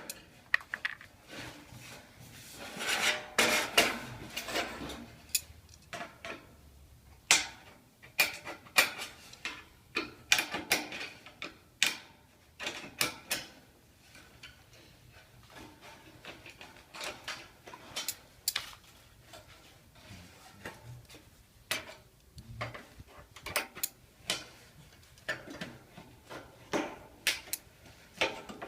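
Sheet-metal ridge flashing being cut by hand: an irregular run of sharp metallic snips and clicks, with a longer scraping stretch about three seconds in.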